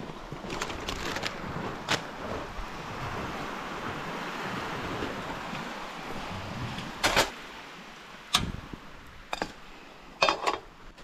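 Handling of a portable gas camp stove and its plastic carry case: several sharp clicks and knocks, the loudest about seven seconds in and near the end, as the case is opened, the stove set down and the pan put on it. A steady wash of surf and wind runs underneath.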